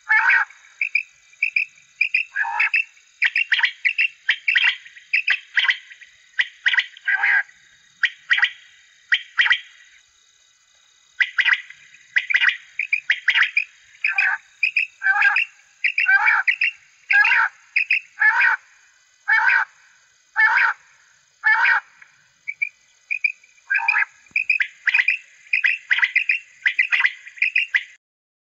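Recorded quail calls played loudly through the horn loudspeakers of a quail caller. Short calls repeat in quick series, with a break about ten seconds in, and stop abruptly just before the end.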